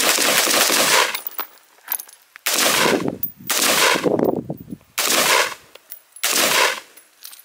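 Firearms shot in rapid strings: about five bursts of quick fire, each roughly a second long, separated by short pauses.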